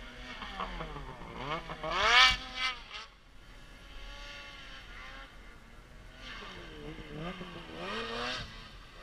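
Snowmobile engines revving up and down. The loudest rev climbs and peaks about two seconds in, then falls away; a second rev rises and falls between about six and eight seconds in.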